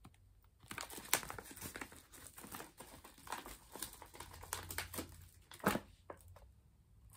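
A paper bag crinkling and rustling as it is handled and opened, with irregular sharp crackles, the loudest about a second in and again near the end.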